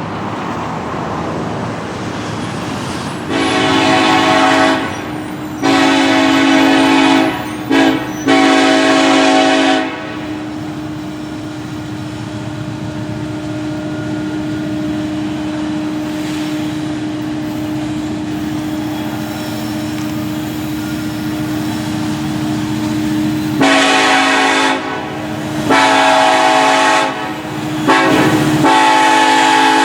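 KCSM SD70ACe diesel locomotive's air horn blowing the grade-crossing signal twice: two long blasts, a short one and a long one. The first sequence starts a few seconds in and the second near the end. Between them the passing train runs with a steady hum.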